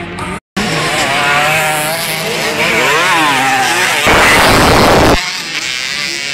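Motocross bike engines revving up and down, pitch rising and falling as the riders work the throttle. About four seconds in comes a loud rush of noise lasting about a second as two bikes pass close by. The sound cuts out briefly about half a second in.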